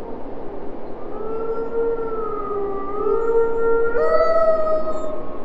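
Wolves howling: long, smooth howls that waver slowly in pitch, starting about a second in and stepping abruptly up to a higher note about four seconds in.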